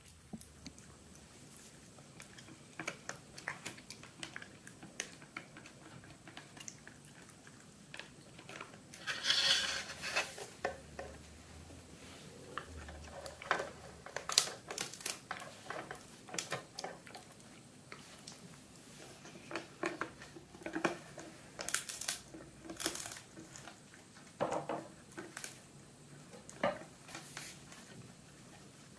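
Italian greyhound chewing and crunching a dried pig ear, with irregular crunches and crackles and a few louder bursts.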